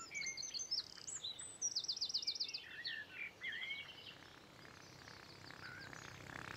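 Birdsong: several birds chirping and whistling, with a fast trill about two seconds in, fading to faint chirps after about four seconds.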